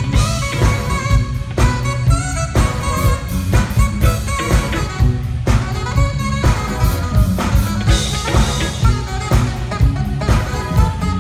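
Live band music: saxophone playing a melodic line over electric bass and a drum kit with a steady beat, as two saxophonists trade phrases.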